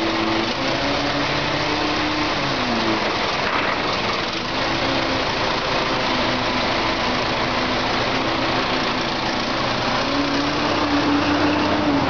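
Forklift engine running under load while it sets a heavy load into a container. Its note drops about three seconds in and rises again near the end.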